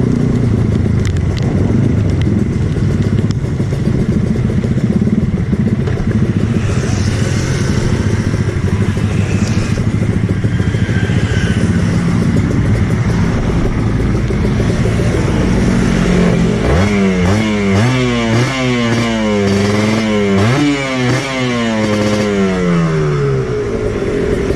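Kawasaki Ninja 150 two-stroke single-cylinder motorcycle engine running steadily, then, about two-thirds of the way in, revved hard several times in quick blips, the pitch climbing and dropping again with each one.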